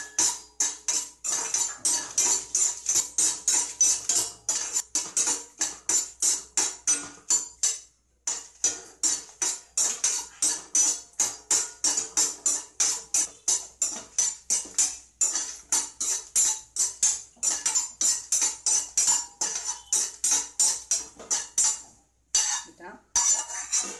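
Metal spoon stirring and scraping dried red chillies around an aluminium kadai in a steady rhythm of about three strokes a second, the pan ringing with each stroke. The strokes pause briefly twice.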